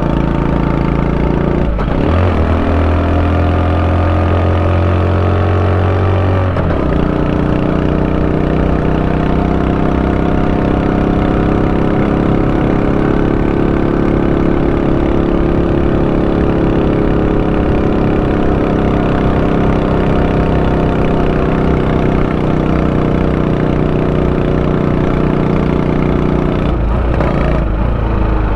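Honda Super Cub 90's single-cylinder four-stroke engine running steadily, its pitch changing about two seconds in, again around six seconds in, and once more near the end.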